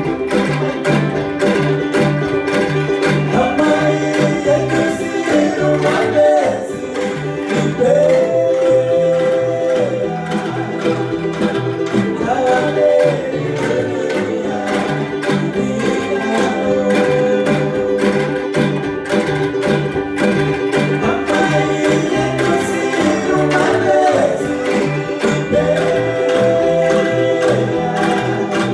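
An angklung ensemble playing a song, the shaken bamboo tubes giving a steady rhythmic accompaniment under long held melody notes.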